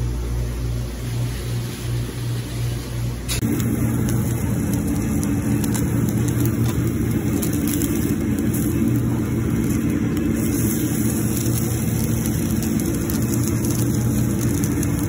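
Steady hum of kitchen fans and machinery running. About three and a half seconds in it becomes a louder, fuller hum with faint scattered crackling.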